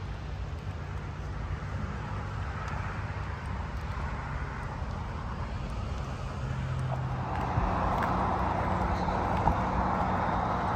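Steady highway traffic: tyre and engine noise of passing cars and trucks, growing louder about two-thirds of the way through.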